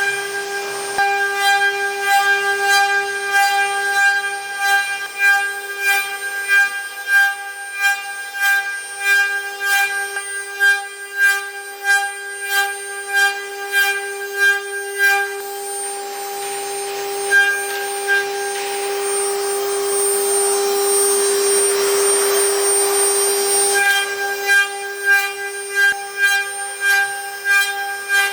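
CNC milling machine spindle running with a steady high-pitched whine, with sharp regular ticks about twice a second. Partway through the ticks stop and a hissing stretch swells and fades before they return.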